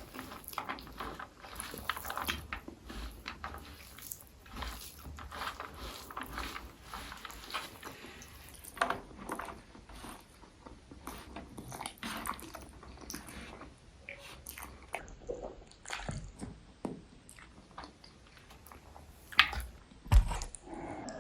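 Close-miked chewing and wet mouth sounds of someone eating egg curry with white rice, in short irregular bites and squelches, with a louder knock just before the end.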